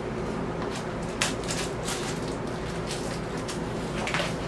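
Hands handling a mail package: a few soft rustles and light clicks over a steady low hum.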